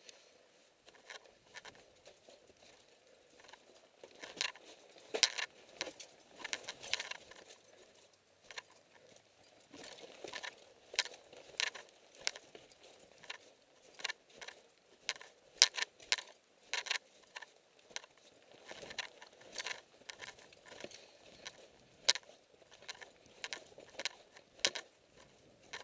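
Boots crunching through packed snow while walking, in uneven steps about one or two a second.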